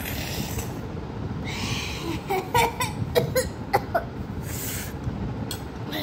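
A boy coughing and breathing hard, with a run of short sharp coughs in the middle and hissing breaths before and after, reacting to the burn of very spicy noodles.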